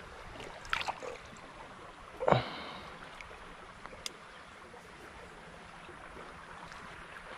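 Small creek water running steadily, with a few brief sharp sounds about a second in and a louder one just over two seconds in.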